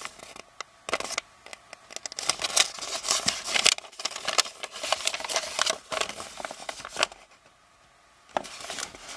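Crisp paper rustling and crackling as a folded paper instruction sheet is turned over and unfolded in the hands, with a pause of about a second near the end.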